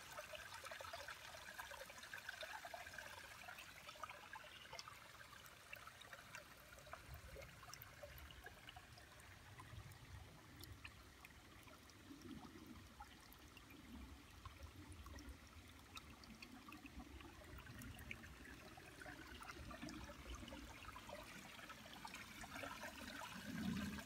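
Faint, steady trickle of shallow creek water flowing over flat stones, with many small ticks and splashes.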